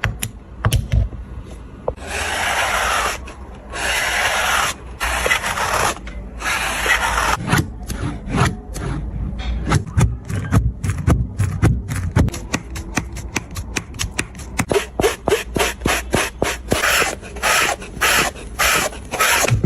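Scrubbing or rubbing on a sneaker. A few long, even strokes come first, then quick short back-and-forth strokes at several a second.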